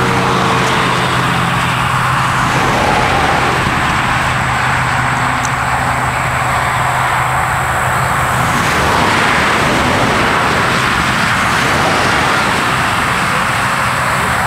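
Steady road and tyre noise heard from inside a moving car, with a low engine hum that fades out a little past halfway.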